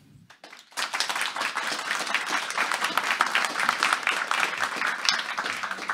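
Audience applauding, starting just under a second in after a brief hush.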